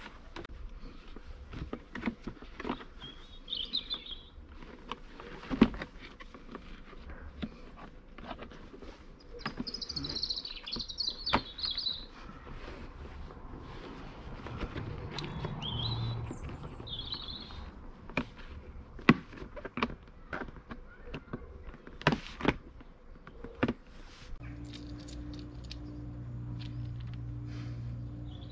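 Plastic parts of a Flymo Speedi-Mo 360C lawnmower's grass box being handled and clipped together: scattered clicks and knocks, with garden birds chirping now and then. A steady low hum comes in near the end.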